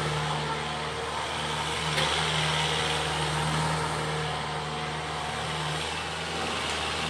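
Kubota tractor's diesel engine running steadily under load as it pulls a cultivator through dry soil.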